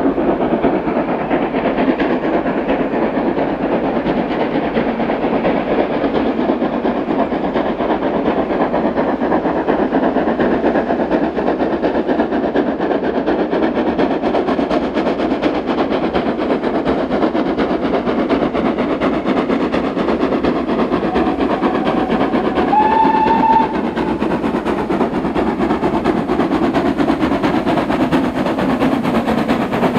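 Steam locomotive climbing a steep gradient, its exhaust beats running steadily. A short whistle blast that rises slightly in pitch sounds about three-quarters of the way through.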